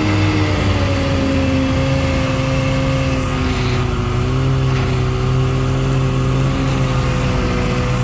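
Side-by-side utility vehicle's engine running steadily under way, its drone dipping slightly in pitch about a second in and again around three seconds in, over a hiss of wind and snow.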